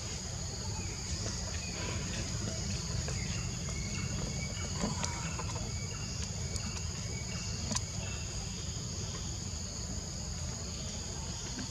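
Steady chorus of insects, two unbroken high-pitched tones, over a low rumble, with a few faint clicks about 5 and 8 seconds in.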